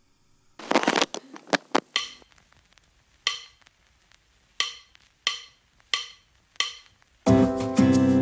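Edited-in background music opening: a quick cluster of clicks and rattles, then single woodblock-like knocks about every two-thirds of a second, and the full track with several instruments comes in near the end.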